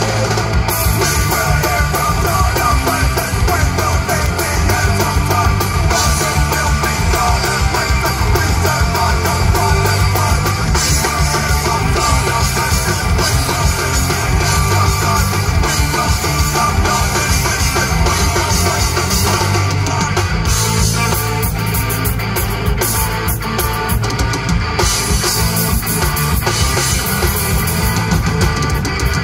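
Rock band playing live: guitar and drum kit, loud and continuous.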